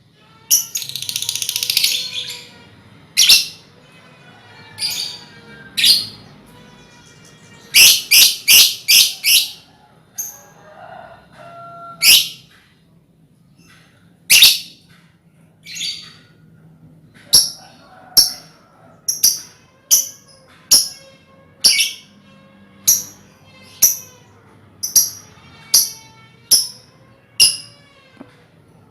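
A colony of lovebirds calling: loud, short, shrill chirps one after another, with a burst of continuous chatter at the start and a quick run of about five calls around eight seconds in, then roughly one call a second towards the end.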